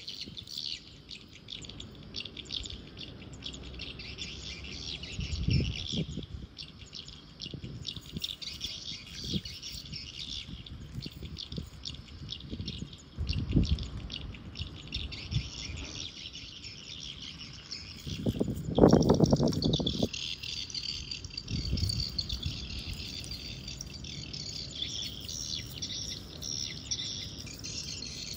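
Continuous high-pitched chirping of birds and insects, with a few short low muffled bumps; the loudest bump comes about two-thirds of the way through.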